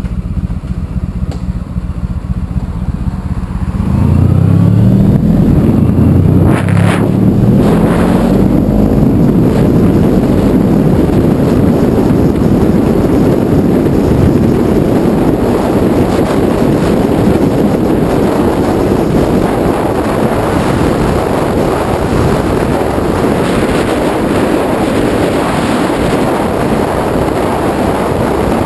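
Honda ST1100 Pan European's V4 engine at low revs, then pulling away hard about four seconds in, rising in pitch through upshifts. It settles into a steady rush of wind and engine noise at speed.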